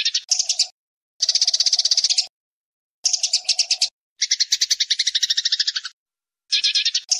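Eurasian tree sparrows chattering while fighting. Their rapid, rattling chirps come in about six short bursts separated by silent gaps, the longest burst near the middle.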